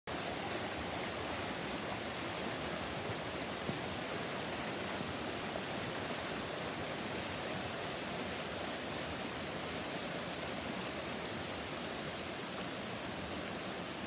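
Steady, even rushing noise with no speech or music.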